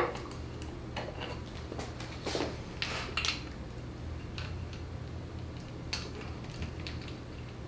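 Crescent wrenches clicking and clinking against a metal AN hose fitting as it is tightened: scattered light metal taps at uneven intervals over a steady low hum.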